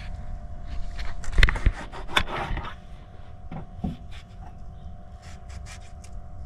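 Food-prep handling noises: a cluster of sharp knocks and clicks from a knife and utensils on a cutting board about a second or two in, a short scrape, then a few lighter clicks, over a steady low rumble.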